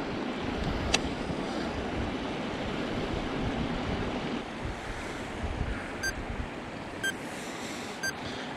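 Wind buffeting the microphone over a steady rushing noise, with one sharp click about a second in and three faint clicks a second apart near the end.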